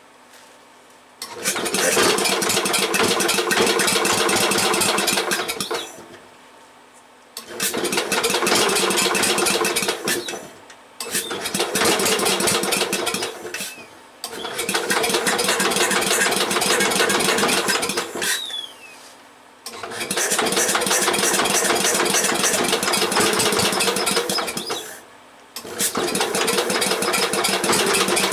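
Cast-iron Briggs & Stratton engine being cranked over by its starter-generator in six bursts of three to five seconds each, with short pauses between attempts, while trying to get it to start.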